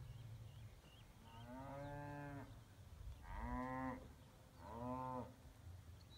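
Cattle mooing: three drawn-out calls, the first the longest, each rising at the onset and then held.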